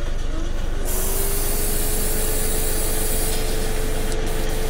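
Airbrush spraying: a loud hiss of air and mist starts about a second in and eases off a little after about two seconds. A steady low hum and a steady whine run beneath it.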